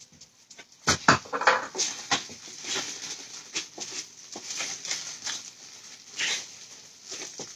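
A knock about a second in as things are set down on a wooden cutting board, then irregular rustling and crinkling of a plastic bread bag being handled, with small clicks.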